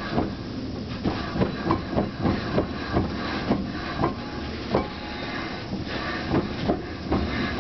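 Mazda RX-7 FC's rear differential making an abnormal knocking noise: repeated clunks, about two or three a second at uneven intervals, over a steady rumble.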